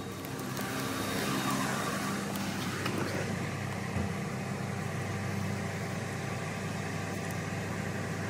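Detroit DD15 inline-six diesel engine of a Freightliner Cascadia truck idling steadily.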